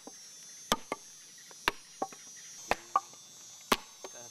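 Poison lianas being pounded to pulp for nivrée fishing, a sharp strike about once a second, some followed by a lighter knock. Forest insects drone steadily behind.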